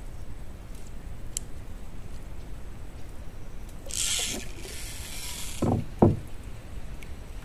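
Wooden fishing boat knocked twice, sharply, as the angler swings his bamboo rod up after the fish has come off the hook, preceded by a short hiss.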